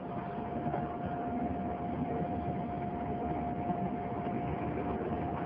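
A vehicle running steadily: a continuous rumble with a single steady tone held above it.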